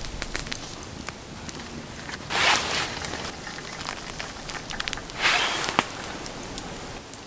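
Campfire crackling with many small sharp pops, and two brief louder hissing rushes, one about two seconds in and one about five seconds in.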